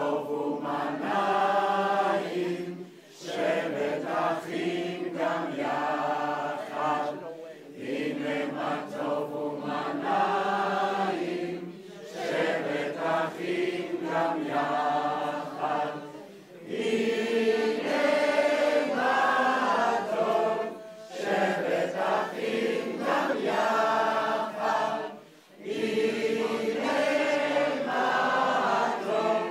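A group of men and women singing a song together, in sung phrases of about four seconds with short breaks for breath between them.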